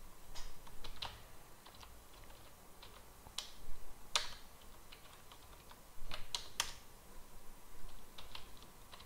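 Typing on a computer keyboard: scattered keystrokes in short irregular runs, with a few sharper clicks about four and six seconds in.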